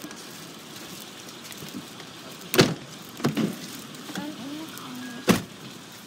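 Steady car-cabin noise broken by two sharp thumps, about two and a half seconds in and again near the end, the loudest sounds here.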